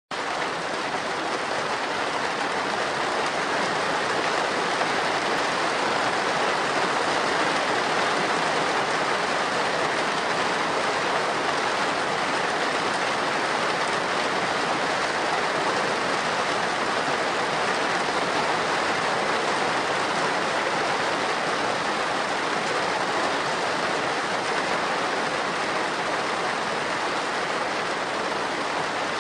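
Heavy rain falling on a slate roof: a dense, steady patter of drops without let-up.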